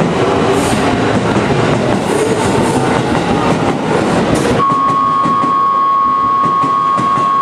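Electric commuter train running on the rails with wheel clatter. About four and a half seconds in the rumble drops away abruptly and a steady high-pitched tone sounds for about three seconds.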